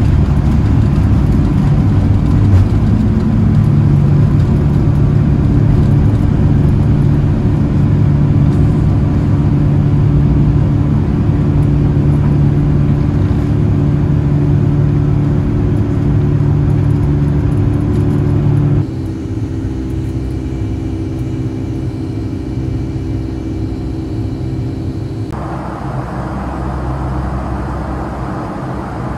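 Cabin noise inside a Boeing 757-232 airliner: a loud, steady rumble of engines and airflow with a low hum. About two-thirds of the way in it drops abruptly to a quieter drone of a different character, and it shifts again near the end.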